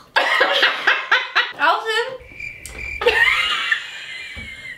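Two women laughing hard. A thin, high held squeal comes about two seconds in, then a long high-pitched laugh.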